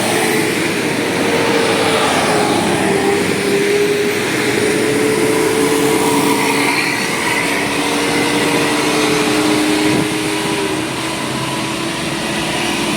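A large vehicle, most likely a bus, with its engine running, giving a steady noisy drone with two held tones that sag slightly in pitch and fade out near the end. No telolet horn is sounding.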